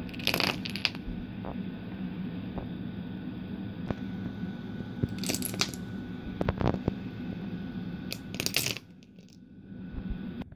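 Wooden dominoes toppling onto a table in short runs of quick, hard clicks: one run near the start, a couple more past the middle and one shortly before the end, over a steady low hum.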